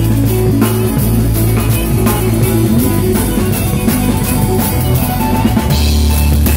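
Live band playing an instrumental passage: acoustic-electric bass guitar holding low notes under a drum kit with cymbals, the bass dropping to a lower note near the end.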